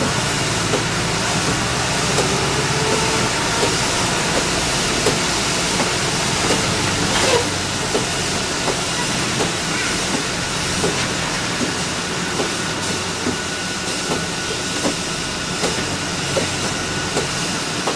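Inside an Orion V transit bus on a wet road: steady engine and tyre hiss, with the windshield wipers clicking regularly, about every three-quarters of a second.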